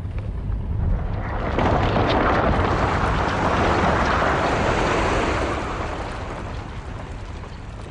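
Glacier calving: a large mass of ice breaking off a glacier face and falling into the sea, a long rush of collapsing ice and splashing water. It builds about a second in, stays loud for several seconds, then slowly dies away.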